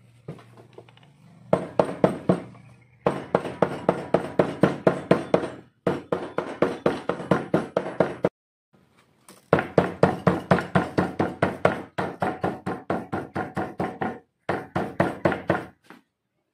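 Small hammer tapping a cowhide machete sheath laid over an iron cobbler's stand: rapid knocks, several a second, in runs of a few seconds with short pauses between them.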